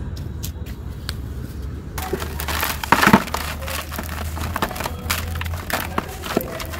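Soft, dry sand-cement lumps crumbling between the fingers, with loose grit pouring into a plastic bucket. Sparse gritty ticks give way about two seconds in to dense crunching and trickling, and the loudest crunch comes about three seconds in.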